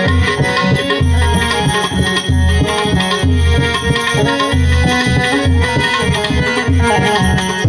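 Instrumental passage of a devotional song: a harmonium holding and moving between sustained notes over a steady hand-drum beat with deep, ringing bass strokes.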